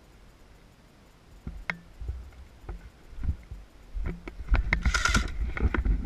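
Footsteps and the rustle and crackle of brush and branches as an airsoft player pushes through undergrowth, with a sharp click a little over a second in; the thuds and crackling get much louder over the last second and a half.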